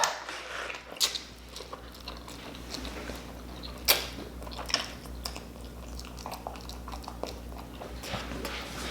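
Close-miked mouth sounds of someone eating spicy instant noodles: scattered soft, wet chewing clicks and smacks, with one louder click about four seconds in.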